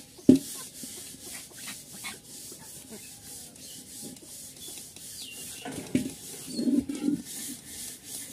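Chickens pecking at scattered grain and a metal feed bowl: a run of small taps and scratchy rubbing, with a sharp knock about a third of a second in and a few louder knocks around six to seven seconds in.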